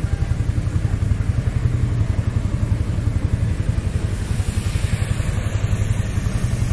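Vintage tractor engine idling with a steady, fast, low chug.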